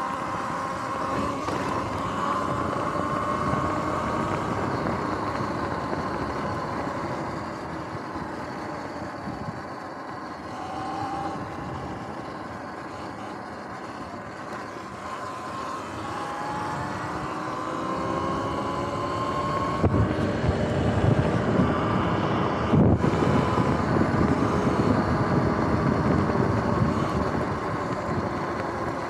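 Sur-Ron electric dirt bike riding off-road: its motor whine rises and falls in pitch with speed over a rumble of tyres and wind. The rumble gets rougher and louder from about two-thirds of the way through.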